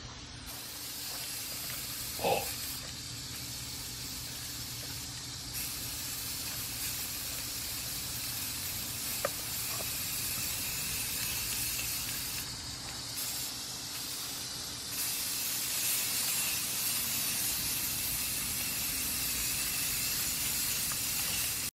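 Aerosol spray-paint cans hissing steadily as paint is sprayed onto the water in a hydro-dipping tub, two cans at once, the hiss thinning briefly twice and growing louder about two-thirds of the way in. A short knock about two seconds in.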